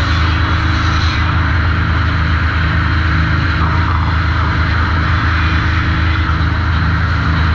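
Sawmill machinery running with a steady, loud mechanical drone, unchanged throughout, with no distinct saw cut or knock standing out.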